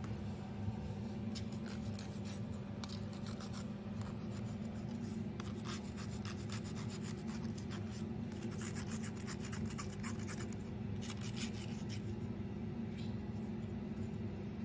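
A cat's claws scratching at an emery nail file in irregular rasping strokes, over a steady low hum.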